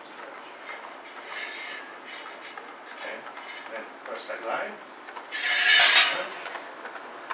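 Two sabre blades sliding and grating against each other as they engage. There is a softer scrape about a second in, and a louder, longer steel-on-steel scrape a little before the end.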